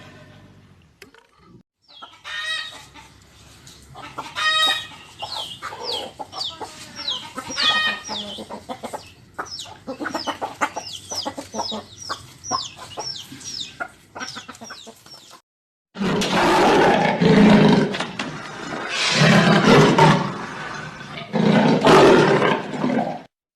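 A fowl-like bird clucking and calling, ending in a run of short falling notes about two a second. After a brief break, a large animal roars loudly in three or four long, deep roars.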